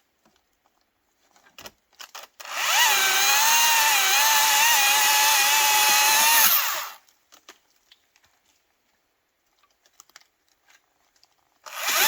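Battery electric chainsaw cutting through a branch: a steady high-pitched motor whine that dips briefly as the chain bites, runs for about four seconds and then stops. A few light clicks come before it, and a second cut starts near the end.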